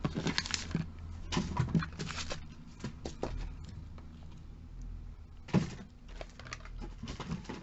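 Cosmetic tubes and boxes being picked up and moved by hand: scattered light knocks and rustles of handling, with a sharper knock about five and a half seconds in.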